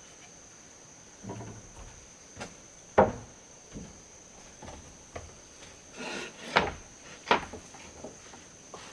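A series of irregular sharp knocks and clatters, the loudest about three seconds in and two more just before and after seven seconds, over a steady high-pitched tone.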